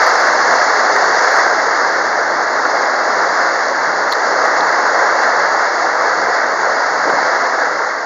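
Steady rushing hiss of water streaming along the hull of a moving tour boat, mixed with the rush of air past the boat.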